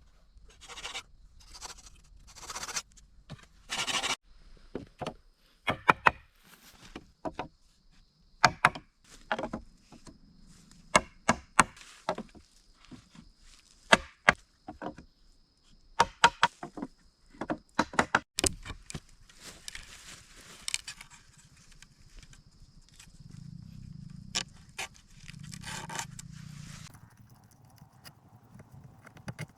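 Bamboo being worked by hand: a few scraping strokes, then a long run of sharp wooden knocks at irregular intervals. A faint steady high tone sits behind them for most of the stretch.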